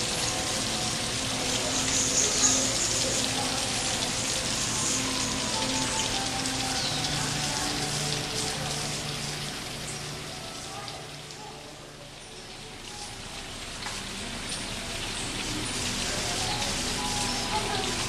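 Steady rush of running water, with soft sustained musical tones underneath that shift pitch every few seconds. The water sound fades down about twelve seconds in and swells back.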